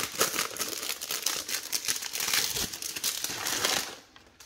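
Thin plastic wrapping crinkling as it is pulled off a hard plastic graded-card slab, with kraft packing paper rustling, in a dense run of crackles that stops about four seconds in.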